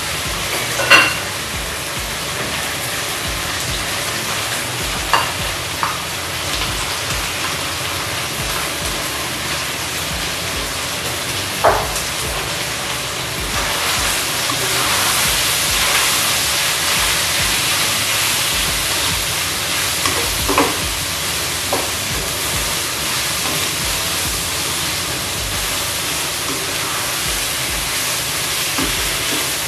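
Chicken, garlic and onion sizzling in a nonstick wok over a gas flame, stirred with a metal spatula that now and then knocks sharply against the pan. The sizzle grows louder for a few seconds about halfway through.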